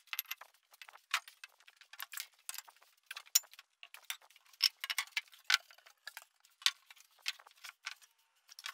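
Irregular sharp clinks and knocks of rusty steel weights, vises and steel blocks, being lifted off a glued plywood panel and set down. A few plywood panels are handled near the end.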